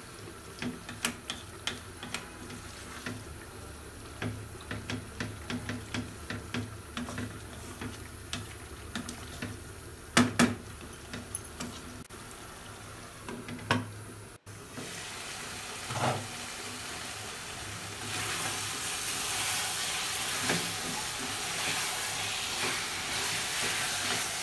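Wooden spatula stirring chicken and moong dal being sautéed in spiced oil in an aluminium pot, with repeated light clicks and scrapes against the pot and a couple of louder knocks. The frying sizzle becomes a louder steady hiss in the last few seconds.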